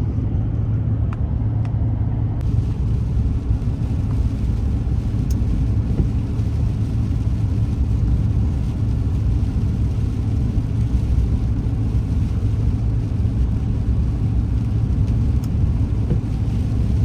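Steady road and engine noise inside a moving vehicle's cabin: a low drone with a hiss that thickens a couple of seconds in.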